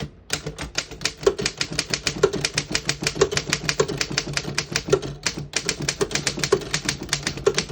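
Keys of a 1929 Underwood No.5 manual typewriter being typed in a quick, steady run, each typebar striking the platen with a sharp clack, several strikes a second with a brief pause about five seconds in.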